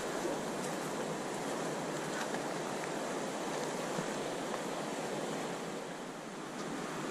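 Steady rushing of a fast-flowing river after a flood, with a few faint clicks; the rush dips briefly a little before the end.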